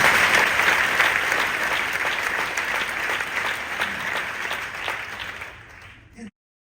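Audience applauding, a dense patter of many hands clapping that slowly dies down and then cuts off abruptly about six seconds in.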